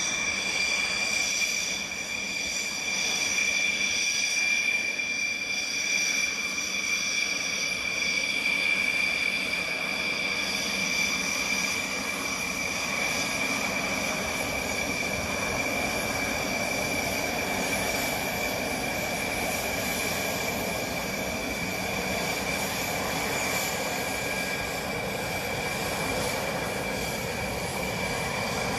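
Rafale fighter jets' turbofan engines running with a steady high-pitched whine over a rushing noise.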